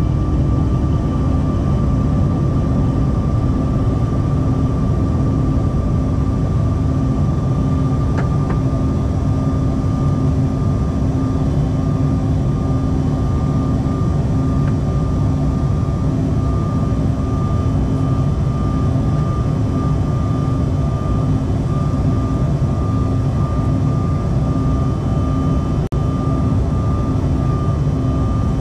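Cabin noise of a Bombardier CRJ-900 climbing out just after takeoff, heard inside the cabin: its rear-mounted CF34 turbofans run at climb power as a steady loud rumble with a constant whine. There is a momentary dropout near the end.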